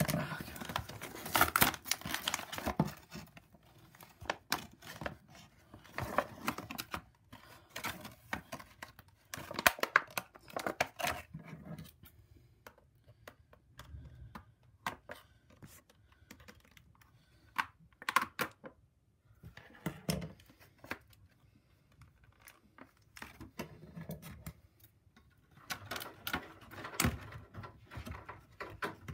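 Toy packaging being opened by hand: irregular clicking, tapping and crinkling of stiff clear plastic and tearing of the cardboard insert, in clusters with short pauses between.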